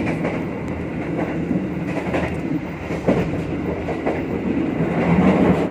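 Passenger train running along the line, heard from inside a carriage by the door: a steady rumble of wheels on rails with a few sharp knocks in the middle.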